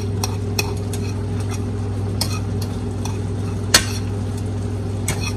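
A spoon stirring browning ground beef in a frying pan, scraping and clicking against the pan now and then, with one sharper clack a little under four seconds in. A steady low hum runs underneath.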